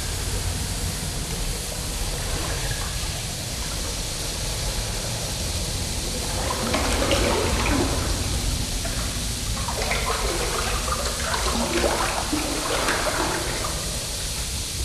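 Underwater sound-effect ambience: a steady low rumble with hiss. From about halfway through, irregular bursts of water bubbling and gurgling join it.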